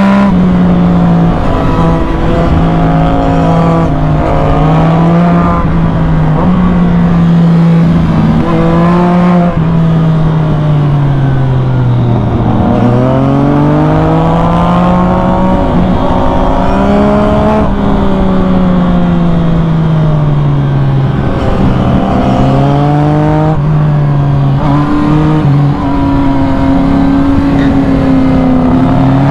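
Yamaha MT-09 SP's inline-three engine through an Arrow full exhaust system, heard from on board while riding hard. The revs swing up and down with throttle and gear changes, dropping lowest about twelve seconds in before climbing again.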